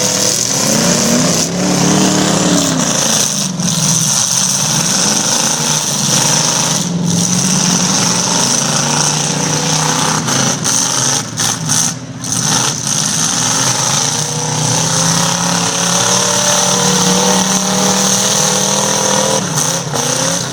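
Several demolition derby cars' engines running and revving together, their pitch rising and falling, with a steady high hiss over them.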